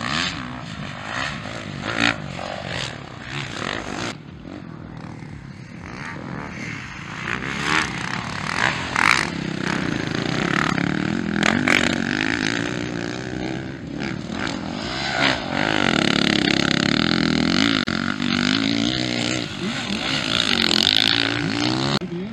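Motocross dirt bike engines revving hard as the bikes race past, the pitch climbing and dropping with throttle and gear changes. Toward the end several bikes are heard at once.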